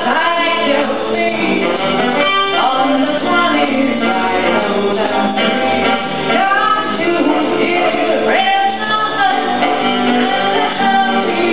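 Live song performance: a singer at a microphone with instrumental accompaniment, the melody carrying on without a break.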